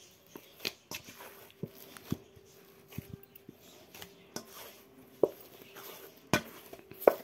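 Wheat-flour (atta) dough being kneaded by hand in a steel bowl: irregular soft knocks and squishes as the fist presses and folds the dough against the bowl, with a few sharper knocks in the second half. A faint steady hum runs underneath.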